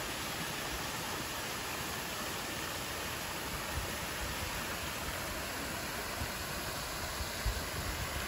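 Large garden water fountain splashing: a steady, even rush of falling water. A few low bumps sound in the second half, the strongest near the end.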